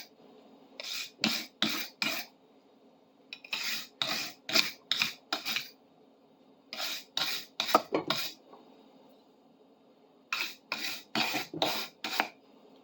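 Scrubbing a steel wrench by hand to clean off grime and rust: four spells of quick, raspy back-and-forth strokes, four to six strokes each, with short pauses between them.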